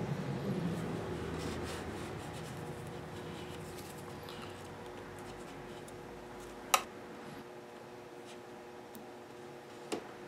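Faint scratching and rubbing of a small wooden stick and fingertips working along a bare wooden guitar neck, with one sharp tap about two-thirds of the way through and a lighter tap near the end. A steady low hum runs underneath.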